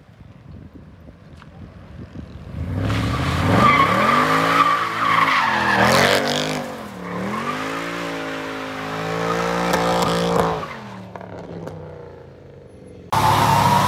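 Mercedes-Benz C63 AMG's V8 revving hard through a burnout, its pitch climbing and dropping several times over the hiss of spinning, squealing rear tyres. Near the end the sound cuts abruptly to another loud, steady engine.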